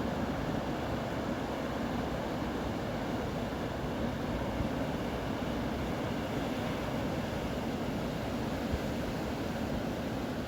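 Steady rushing of river rapids, the St. Lawrence's Lachine Rapids running in winter, a continuous even roar with no breaks.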